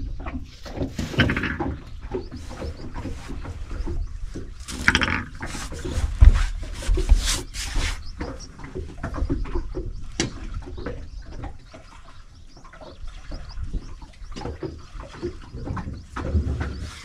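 Irregular knocks, clatter and rustling of fishing gear being handled in a small boat, with one heavy thump about six seconds in.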